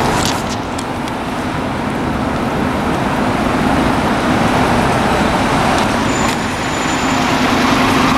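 Street traffic noise with a steady engine hum from buses and coaches.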